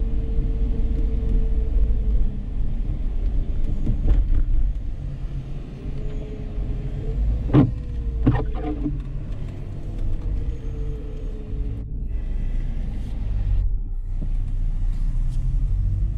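Dodge Charger's 3.5-litre V6 engine and road noise while driving: a steady low rumble with an engine note that rises and falls. Two sharp knocks come a little after halfway.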